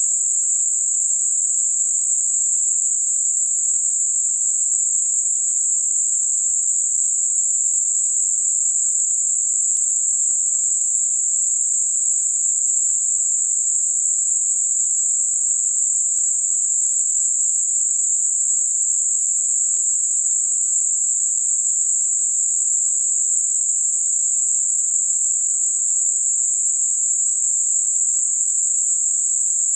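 Generated Gaussian narrow-band noise centred on 7.5 kHz: a steady, even, high-pitched hiss with no low sound beneath it, made for masking high-frequency tinnitus.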